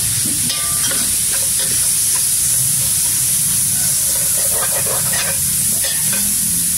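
Spice paste sizzling in an aluminium pot while a metal ladle stirs it, scraping now and then against the pot over a steady frying hiss.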